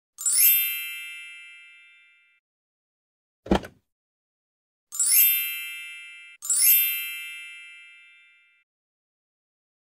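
Edited-in chime sound effects: a bright ringing ding that fades out over about two seconds, heard three times (near the start, about five seconds in, and again a second and a half later), with one short whoosh-thump between the first and second.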